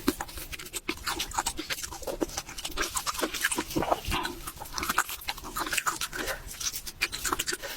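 Close-miked wet chewing and lip-smacking mouth sounds, a rapid run of small clicks and squelches.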